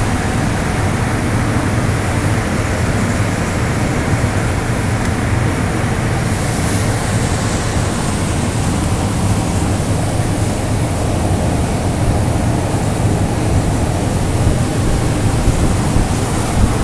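Steady hiss and rush of a CNC profile-cutting machine's torch cutting through metal plate, over a low steady hum.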